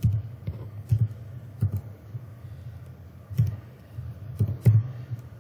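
Computer keyboard keystrokes: about ten separate taps at an uneven, unhurried pace, entering a date one key at a time.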